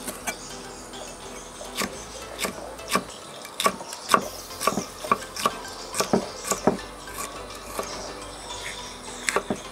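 Chef's knife chopping on a round wooden chopping board, cutting spring onions and then a green chili: an irregular run of sharp knocks about two a second, thinning out near the end.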